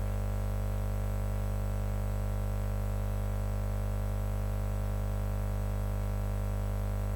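Steady electrical mains hum and buzz from the sound system, unchanging throughout.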